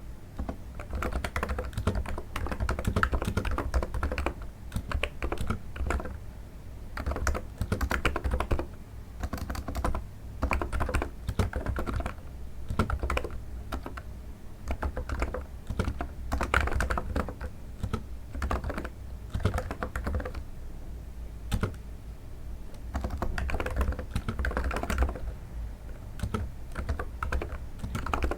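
Typing on a NiZ electro-capacitive keyboard: rapid runs of soft keystrokes with brief pauses between bursts, a muffled sound likened to stepping on snow.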